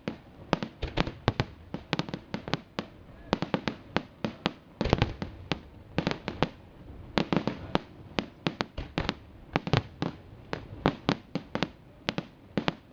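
Fireworks display: a rapid, irregular barrage of shell bursts and crackling reports, several bangs a second throughout.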